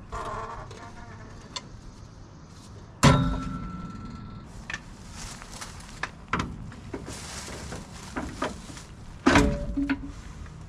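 Sharp metal clanks, a loud one with a short ring about three seconds in and another near the end, with scraping and shuffling between: hand tools working an SM465 transmission's bell housing loose from the engine block's dowels.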